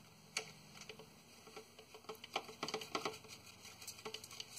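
Faint, irregular small clicks and taps from fitting and starting the retaining bolt of a transmission filter by hand, a few bunched together past the middle.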